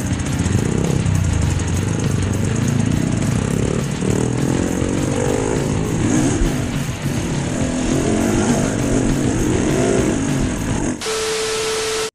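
Husqvarna enduro dirt bike engine running at low speed, its revs rising and falling as it picks its way over rocky ground. In the last second it cuts suddenly to TV-static hiss with a steady beep.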